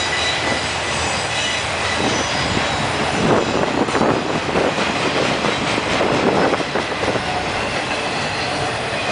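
BNSF trailer-on-flatcar intermodal train rolling past close by, downgrade: a steady rumble and clatter of wheels on rail, with a thin high wheel squeal in the first couple of seconds. The clatter grows louder and rougher from about three to seven seconds in.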